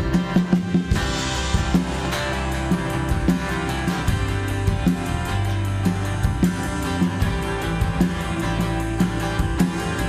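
Band music with drum kit, bass and guitar playing a steady beat, with a cymbal crash about a second in.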